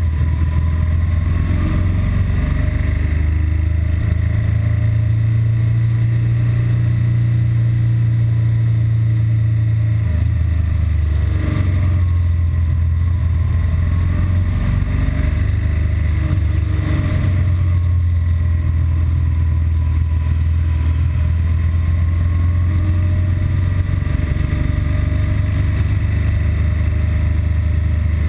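BMW R1200GS Adventure's boxer-twin engine running steadily under way, with a change in engine note about ten seconds in. It is running normally, before the intermittent stalling and rough-idle fault sets in.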